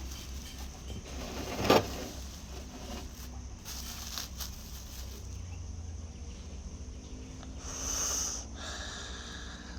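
A sharp knock about two seconds in and a brief rustling hiss near the end, over a steady low hum.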